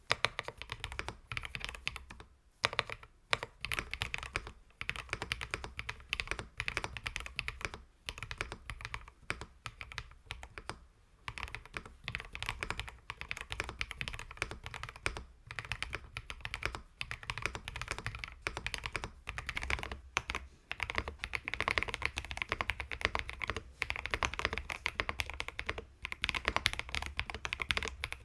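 Fast typing on a JamesDonkey J2 mechanical keyboard with its stock switches: a dense run of keystroke clicks and clacks, broken by a few short pauses.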